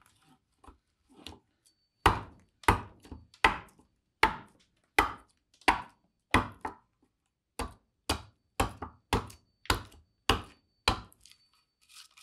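Bowl adze chopping into a black walnut bowl blank: about a dozen sharp strikes, roughly two a second, stopping shortly before the end. The walnut is past its greenest and a little gnarly to cut.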